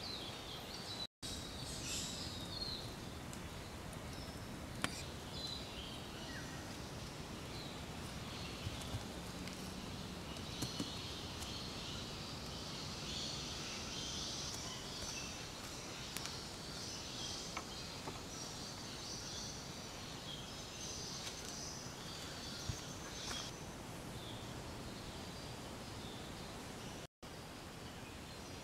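Forest insects and birds calling continuously, a high busy chatter over a soft hiss, with a few sharp light clicks scattered through.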